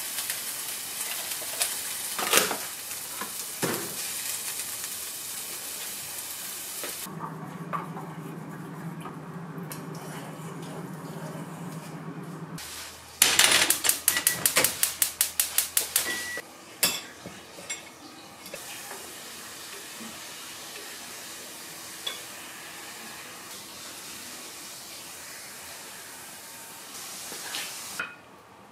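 Vegetables sizzling as they are stir-fried in a frying pan, with cooking chopsticks clicking against the pan. Partway through, a steady low hum lasts several seconds, followed by a quick run of sharp clicks for about three seconds, after which the frying goes on more quietly.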